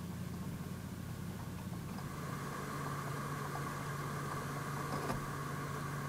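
Rack storage server's cooling fans running steadily: a low hum with airflow hiss. About two seconds in, the sound changes: the hum drops a little in pitch and a steady mid-pitched fan whine appears as a different fan setup is heard.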